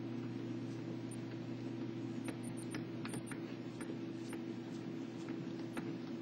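Steady low hum with faint, irregular clicks of a Phillips screwdriver turning screws into the PC housing.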